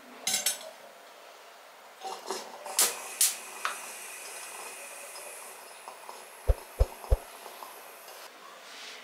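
Household objects being handled and set down: light rustling and scraping, two sharp clinks about three seconds in, and three quick soft knocks a little later.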